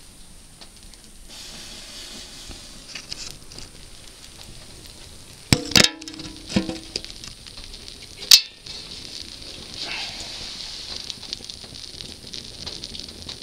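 A dense block of burning matchsticks hissing and crackling as the flames die down, with a few loud sharp cracks about halfway through and another a couple of seconds later.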